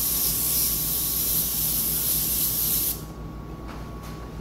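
Airbrush spraying a light dust coat of black paint: a steady hiss of air that cuts off suddenly about three seconds in.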